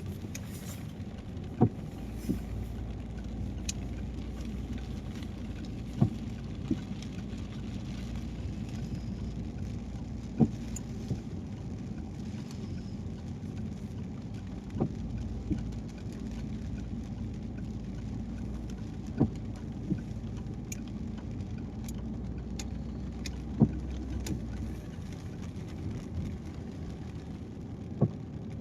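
Steady road and tyre noise from a car driving on a wet highway in the rain, heard from inside. Every four seconds or so there is a pair of short knocks about a second apart, the rhythm of windscreen wipers on an intermittent setting.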